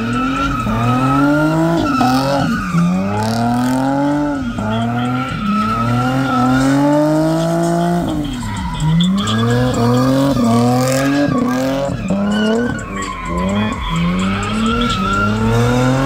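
Chevrolet Camaro spinning donuts: the engine revs climb and fall back again and again, about once a second, over a steady screech of spinning tyres. One longer climb in the middle ends in a sharp drop.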